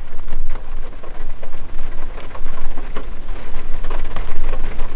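Rain from a sudden shower pattering on a car's roof and windows, heard from inside the car: a steady dense patter of separate drops hitting over a low rumble.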